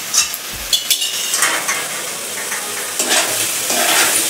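A flat spatula scraping and stirring fried prawns into a thick spice masala in a nonstick kadai, over a steady frying sizzle. There are a few sharp taps in the first second as the prawns go in, and the stirring strokes grow stronger toward the end.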